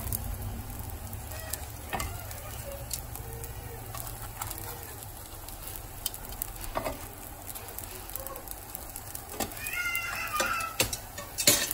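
Spring rolls in pastilla pastry sizzling softly in a frying pan greased with only a little oil. Metal tongs click now and then as the rolls are turned, with a sharp clack near the end.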